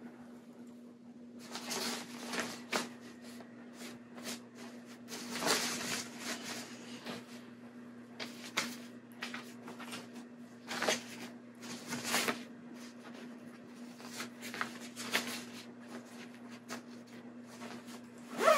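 Clothes and fabric packing cubes being handled and packed: irregular rustles and soft knocks of fabric being shifted and laid in, starting about a second and a half in, over a faint steady hum.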